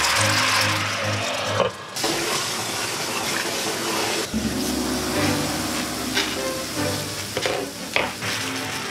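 Food sizzling in a frying pan, with a few light knocks, over background music.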